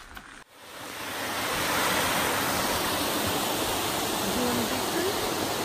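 Steady, loud rushing of moving water that fades in about a second in after a sudden break in the sound.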